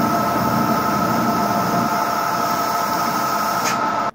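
Drill press running with a single-flute countersink cutting into a drilled hole in a metal block: a steady whine of several held tones over a hiss. It cuts off suddenly at the end.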